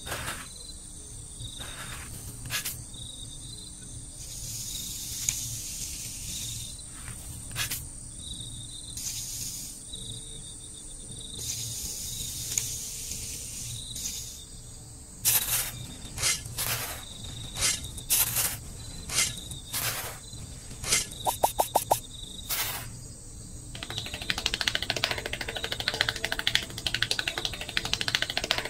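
Crickets chirp steadily in a pulsing chorus. From about halfway through, a small trowel scrapes and digs into sand: first a string of sharp separate scrapes, then continuous gritty scraping near the end.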